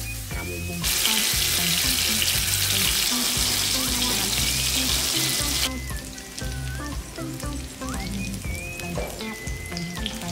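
Loud sizzling of hot oil with sliced garlic poured into a frying pan over a chicken fillet. It starts about a second in and cuts off suddenly after about five seconds. Soft background music plays underneath.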